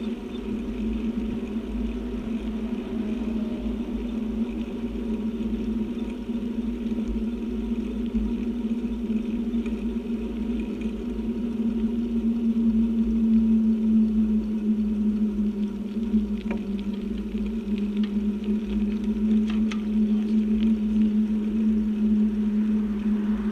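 Bicycle rolling fast on a road: wind rumbling on the microphone and a steady hum from the tyres, the hum dipping slightly in pitch midway, with a few faint clicks.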